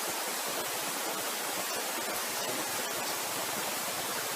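Steady, even hiss of background noise with a few faint light ticks.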